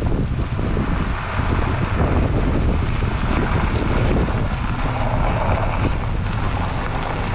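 Pickup truck driving on a gravel dirt road, heard from under the vehicle: a steady rush of wind buffeting the microphone over the tyres rolling on loose gravel and the low rumble of the running gear.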